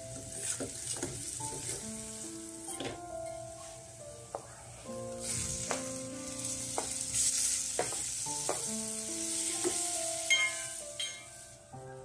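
Chopped garlic and turmeric sizzling in hot oil in a stainless steel pot, with a steel ladle stirring and clinking against the pot. About five seconds in, chopped tomatoes go in and the sizzle gets louder for a few seconds. Soft background music plays throughout.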